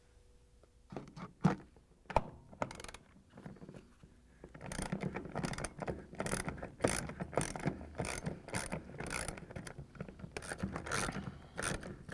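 Ratchet wrench with a 3/8-inch socket on a long extension clicking as it is worked back and forth, unscrewing the long screw that holds a dishwasher pump motor to its sump. A few separate clicks come first, then steady ratcheting from about five seconds in, two to three strokes a second.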